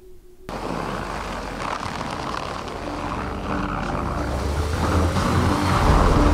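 UAZ Patriot SUV running off-road, a steady engine rumble and driving noise that grows steadily louder. Steady musical tones come in about halfway through.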